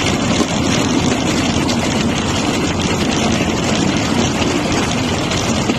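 Bamboo train (norry) running along the rails: a steady engine drone mixed with the rattle of the wheels on the track and wind on the microphone.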